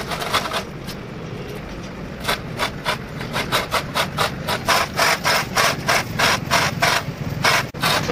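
Manual chain hoist being worked by hand with a diesel engine hanging from it: a rhythmic rasping clatter of chain running through the block, about four strokes a second, starting about two seconds in.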